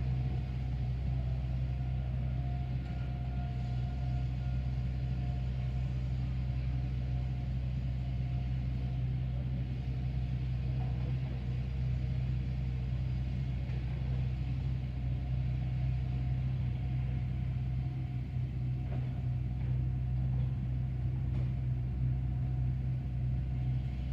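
Steady low rumble of a vehicle engine idling close by. Over it come faint, thin tones from distant Federal Signal 2001 outdoor warning sirens, which are still sounding.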